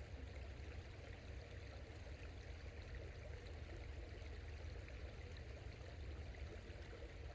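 A small forest creek running: a faint, steady rush of water.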